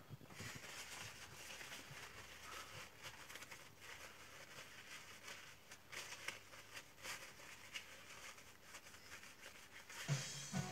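Faint handling sounds at a workbench: light rustling of a paper towel and small taps and clicks of tools being put down. Background music comes in near the end.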